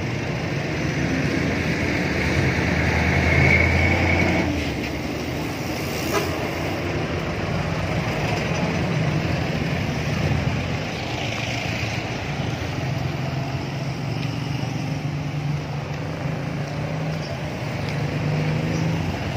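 Street traffic: motor vehicle engines running and passing by, loudest a few seconds in.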